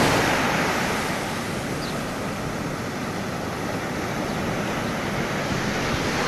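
Ocean surf breaking and washing up a sandy beach in a steady rush. It is loudest at the start and settles a little after about a second.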